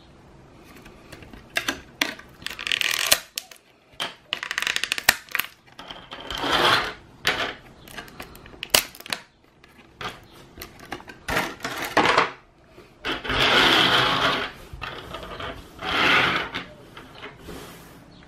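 Clear plastic blister tray crinkling and crackling in bursts as it is handled and flexed, among many sharp clicks of small plastic Z-Crystal pieces being popped out and set down on a table.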